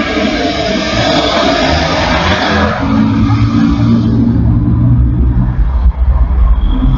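Road traffic passing close by on a busy highway: tyre and engine noise of cars and vans, loudest in the first three seconds as a vehicle goes past, then mostly the lower engine sound of slow-moving cars.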